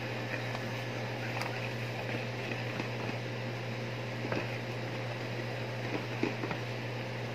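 Steady low machine hum, with a few faint clicks of a wire whisk against the bowl as flour is stirred in.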